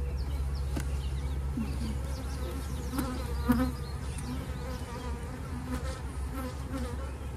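Honey bees buzzing around an opened hive, with single bees passing close by in short buzzes that rise and fall in pitch. One sharp crack about halfway through as a frame is prised loose with a hive tool.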